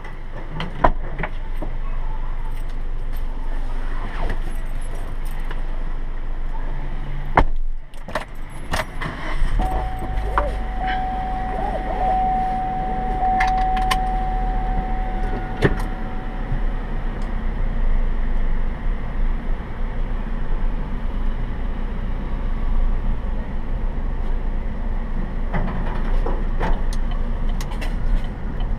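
Keys jangling and a few knocks, then a car engine starts about a third of the way in and runs steadily, with a steady high tone sounding for several seconds just after the start. Near the end the car pulls away.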